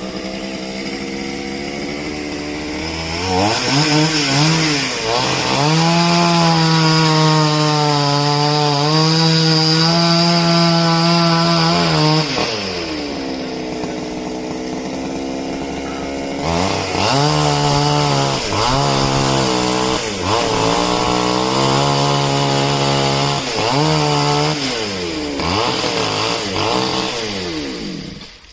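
Two-stroke chainsaw cutting coconut palm wood: it revs up and holds at full throttle for several seconds, drops back to idle about twelve seconds in, then is throttled up again in a run of repeated rev bursts.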